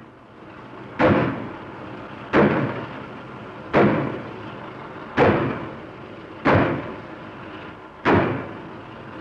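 BSP pile hammer on a piling frame striking the head of a pile, six heavy blows about one every second and a half, each dying away before the next, with a steady mechanical noise between them. The pile is being driven through soft ground near the surface.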